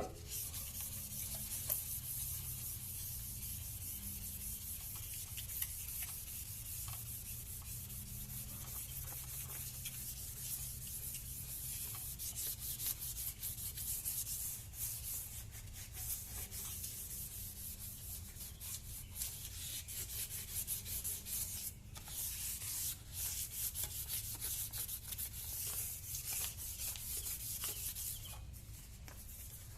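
1000-grit wet sandpaper rubbed back and forth by hand over a plastic headlight lens, a continuous scratchy hiss with a steady low hum underneath.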